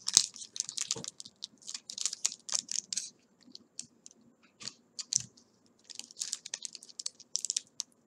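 Foil wrapper of a Pokémon booster pack crinkling and crackling as it is handled and opened by hand: quick irregular crackles in bursts, with brief pauses between them.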